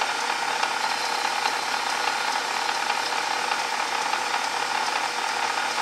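Small metal lathe running steadily under power, its motor and gear drive making a constant whir with a steady tone, while the tool takes a facing cut across the end of brass stock.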